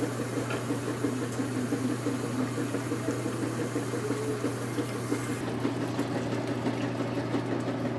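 Washing machine running with a steady low hum. A kitchen tap runs into a pot of lentil soup and shuts off about five seconds in.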